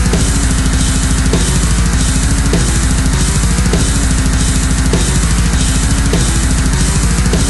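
Loud heavy metal music with fast, dense drumming under sustained notes that step up and down in pitch.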